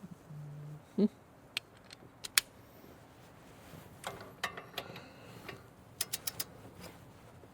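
Wrench and tools working on truck brake parts: scattered sharp metal clicks and taps, with a quick run of four ratchet clicks about six seconds in.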